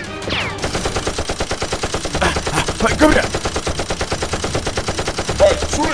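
Rapid automatic-gunfire sound effect, even shots at about ten a second, starting about half a second in and keeping up without a break. It is added to the picture of toy blaster fire.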